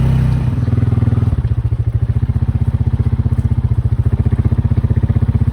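Motorbike engine running steadily with a fast, even putter; its note shifts about a second in and then holds.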